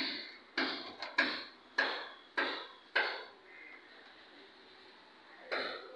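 White plastic water pipe and fittings being knocked into place against a brick wall: sharp knocks with a short ringing tail. There are about seven in the first three seconds, then a pause, then another knock near the end.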